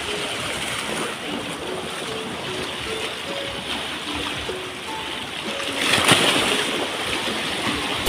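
Sea waves washing over and breaking against shore rocks in a steady rush, with one louder wave crashing and splashing on the rocks about six seconds in.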